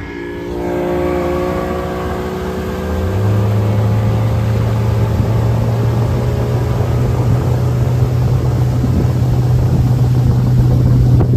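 Boat outboard motor running at speed, its pitch stepping up about three seconds in as the throttle opens, then holding steady, with wind and water rushing past the hull.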